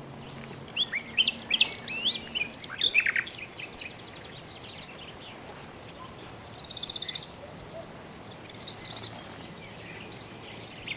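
Wild songbirds chirping: a quick run of short chirps in the first few seconds, a brief buzzy trill about seven seconds in, then a few faint chirps, over a low outdoor hiss.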